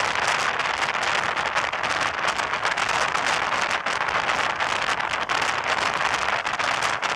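Steady rushing road and wind noise of a moving vehicle, a dense hiss with fine crackling all through.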